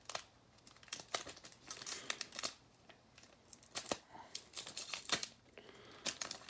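Wrapper of an Elite Extra Edition baseball card pack crinkling and tearing as it is pried open by hand, in irregular crackles. The pack is tough to open.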